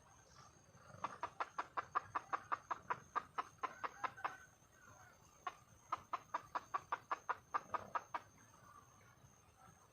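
Wild junglefowl hen clucking in two rapid runs of short clucks, about six a second, the first from about a second in to past four seconds and the second from about six to eight seconds, with a single cluck between them. It is a hen's call to draw a cock.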